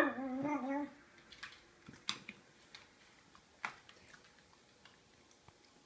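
A dog's short whine that wavers in pitch and trails off within the first second, then a handful of faint scattered clicks of dog claws on the hard floor.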